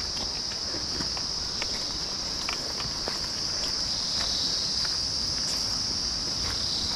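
Loud, steady high-pitched drone of a forest insect chorus, with faint footsteps on a dirt trail.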